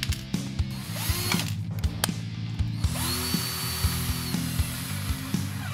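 Cordless drill spinning a 3D-printed planetary gearbox by a shaft in its centre. A brief spin-up comes about a second in. About three seconds in comes a longer run: the whine rises, holds steady for over a second, then winds down.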